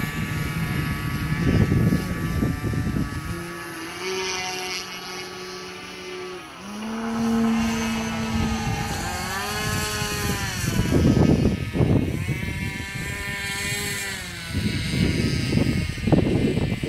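Electric motor and 22x10 propeller of a large RC Extreme Flight Extra 300 (XPWR 40cc-class motor on 12S) in flight, a buzzing whine that rises and falls repeatedly with the throttle. Bursts of low rumble come and go, loudest about a second in, around ten seconds in and near the end.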